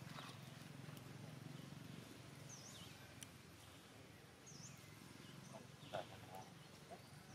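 Quiet background with a bird's faint, short high call that dips down and back up in pitch, repeated about every two seconds.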